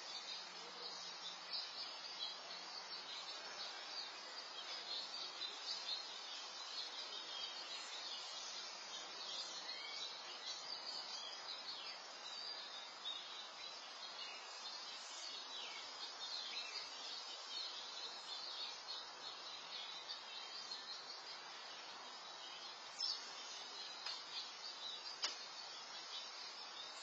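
Outdoor ambience picked up by a security camera's microphone: a steady chorus of high, insect-like trilling with scattered small bird chirps over a faint hiss. Two short ticks stand out near the end.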